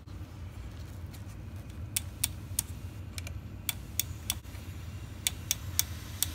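Flow-rate selector dial of a BOC CD oxygen cylinder being turned by hand, clicking through its detent positions: about a dozen sharp, unevenly spaced clicks starting about two seconds in.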